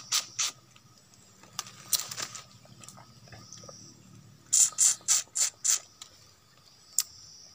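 Wet mouth smacks and sucking of a person eating stingless bee honeycomb, slurping the honey from the comb: a few smacks at the start, then a quick run of about six about two-thirds of the way through.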